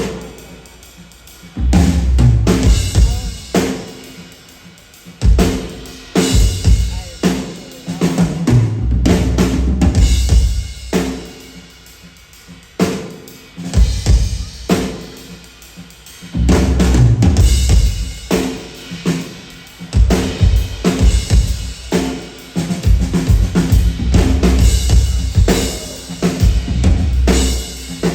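Live stage percussion: loud drumming with heavy bass hits and sharp snare-like strikes, in driving phrases of a few seconds broken by short quieter gaps.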